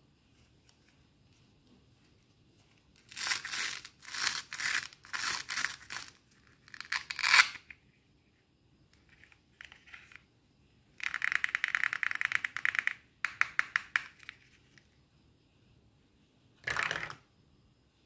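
Two halves of a ribbed plastic toy fruit rubbed and scraped together by hand. A series of separate rasping strokes is followed, about eleven seconds in, by a longer, rapid rasp, then a quick run of ticks and one short rasp near the end.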